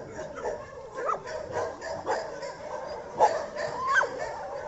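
Shelter puppies yipping and whining, short rising cries about once a second.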